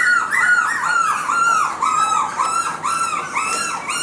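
Young cockapoo puppies yipping in a continuous run of short high-pitched yelps, several a second, with calls from more than one puppy overlapping.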